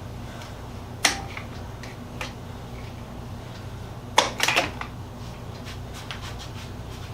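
Routed wooden base-frame pieces being handled and set against a wooden box, giving a sharp knock about a second in and a quick clatter of several knocks just after four seconds, over a steady low hum.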